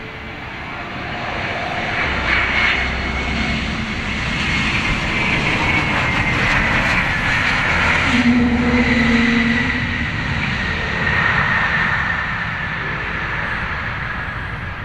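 Airbus A321neo airliner landing, its Pratt & Whitney geared turbofan engines growing loud over the first couple of seconds, then easing off toward the end. A high engine whine falls slowly in pitch as the aircraft passes.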